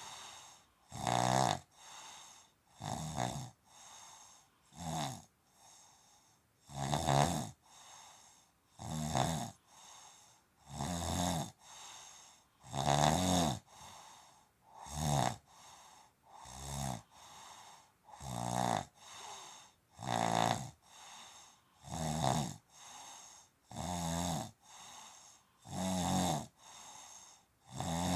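A sleeping person snoring heavily and steadily: a loud rasping snore about every two seconds, with a soft breath between snores.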